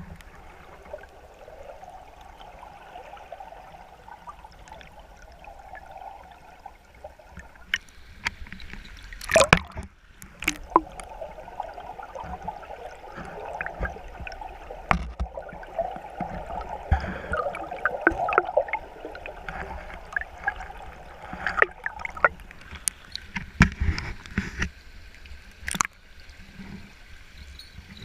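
Water gurgling and lapping, with scattered knocks and clicks; the loudest knock comes about nine seconds in.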